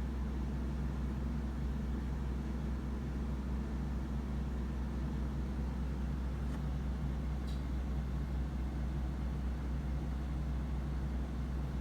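Steady, unchanging low hum over a faint hiss, with two faint ticks about a second apart a little past halfway.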